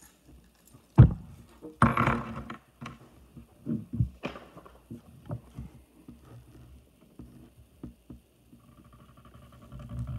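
Ballpoint pen scratching on paper over a hard table in short, irregular strokes, with a sharp knock about a second in, the loudest sound.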